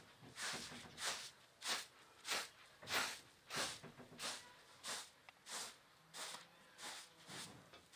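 Hand broom of bundled straw sweeping a pile carpet: a steady run of short swishing strokes, about three every two seconds.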